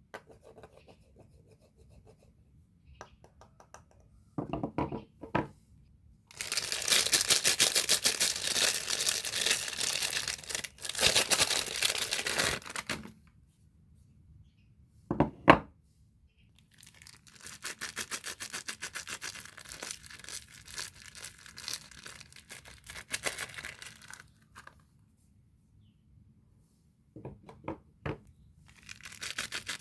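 Soap wrapping being torn open and crinkled in two long stretches of rapid crackling, with a few short knocks between them, the sharpest about halfway through.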